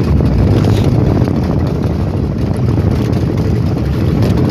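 Motorized outrigger fishing boat (banca) under way: its engine running steadily in a low rumble, with water washing against the hull and outrigger.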